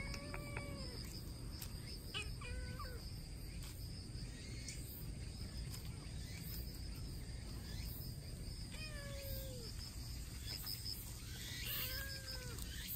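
Orange-and-white kitten meowing four times: short calls at the start, about two and a half seconds in, about nine seconds in and near the end, over a steady high insect buzz.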